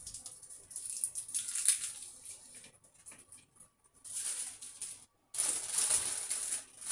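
Kitchen work sounds: several bursts of hissing noise with light clatter.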